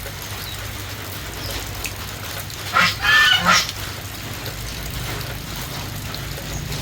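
A chicken gives one loud call about three seconds in, lasting about a second and broken into three quick pulses, over a steady background hiss and low hum.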